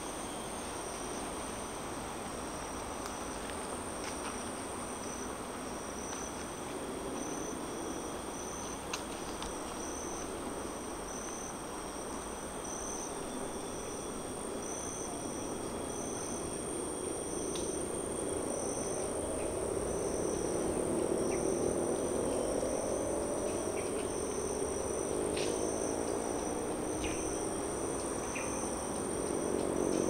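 Forest insects: a steady high-pitched buzz with a second insect chirping in regular pulses about once a second. Beneath them, traffic noise from a nearby highway rumbles and grows louder in the second half, as vehicles pass.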